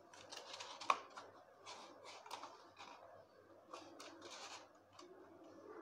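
Sheet of paper rustling and crackling as it is folded in half and creased by hand, with a sharp crack about a second in.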